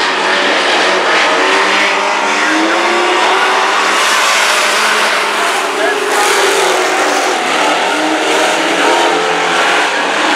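Several dirt-track race trucks' engines running hard around a dirt oval during a heat race, their engine notes rising and falling as they pass and overlap.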